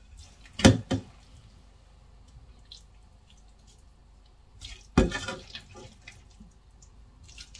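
A few short clicks and knocks from eating a served meal, with a louder one about five seconds in, like a utensil or fingers against a plate and mouth sounds.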